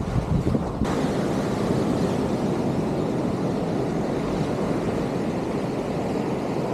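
Ocean surf washing on the shore, with wind buffeting the microphone: a steady noise without any clear pitch.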